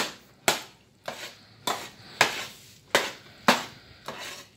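A utensil knocking against a stainless steel pot of boiling noodles as they are stirred: about eight sharp clanks, roughly two a second.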